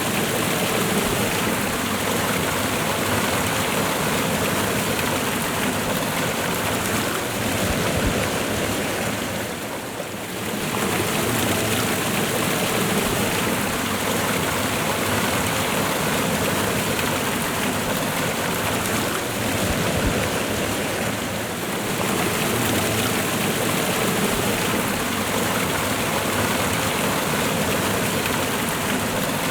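A waterfall and fast-running river water: a steady, dense rush of water that briefly drops in level twice, about a third of the way in and again about two-thirds through.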